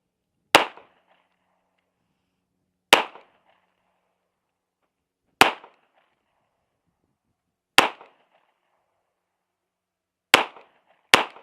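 Six single gunshots from a firearm fired at a slow, steady pace, about two and a half seconds apart. The last two come quicker, less than a second apart. Each crack is followed by a brief echo.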